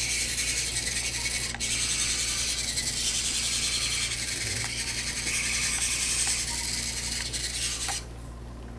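A Parallax Boe-Bot's continuous-rotation wheel servos running as the robot is driven and turned by joystick: a steady rasping buzz that cuts off about eight seconds in.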